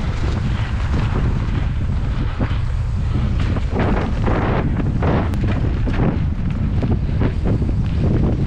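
Wind buffeting a helmet-mounted GoPro's microphone at riding speed, with a mountain bike's tyres rolling over dry leaves and dirt and the bike rattling and knocking over bumps in the trail.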